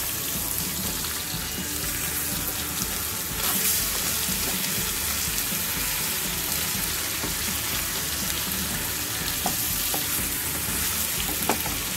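Marinated chicken drumsticks shallow-frying in a little oil in a pan: a steady sizzle, a little louder from about three and a half seconds in.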